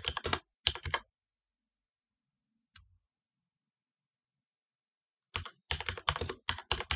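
Computer keyboard typing: a quick run of keystrokes, a pause broken by a single key press about three seconds in, then another rapid run of keystrokes near the end.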